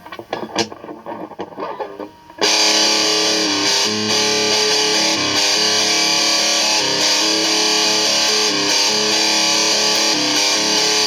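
A few quiet plucks and clicks, then about two and a half seconds in loud electric guitar with distortion starts abruptly and plays on steadily in held, overlapping notes.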